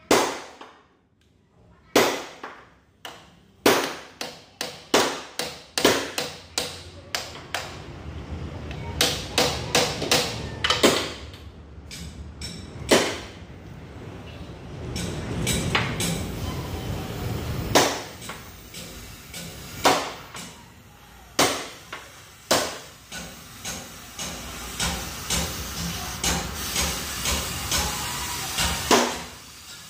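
Oxy-fuel cutting torch cutting through a steel truck chassis frame: a steady rushing hiss that comes and goes, broken by many loud, sharp cracks and pops at irregular intervals.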